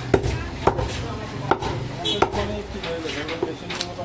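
Large butcher's knife chopping goat meat on a round wooden chopping block: five sharp, irregularly spaced chops.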